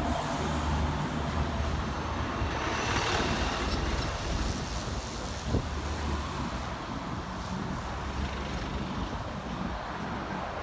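Road traffic: motor vehicles running past, swelling as one goes by about three seconds in, with a short knock near the middle. The last of an ambulance siren dies away in the first second.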